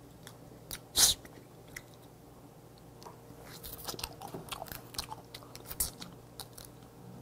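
Close-miked eating sounds of a person chewing cooked red snow crab leg meat: soft wet mouth noises with scattered small clicks, and one sharper click about a second in.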